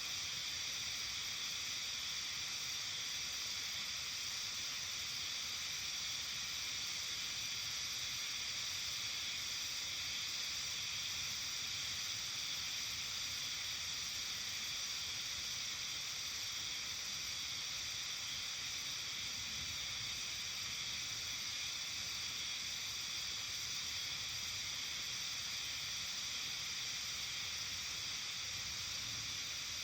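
Steady evening countryside ambience: a dense, even high hiss that never changes, with no single call or event standing out.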